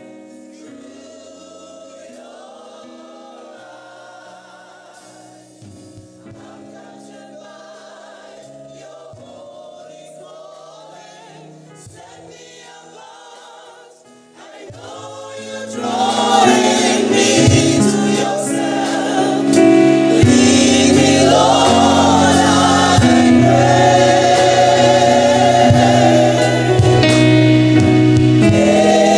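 Church choir of mixed voices singing a slow gospel song, softly at first, then swelling much louder about halfway through.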